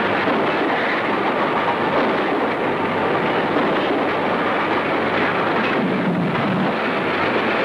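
Steady rushing noise of a large fire burning, a film sound effect at an even level with no distinct knocks or beats.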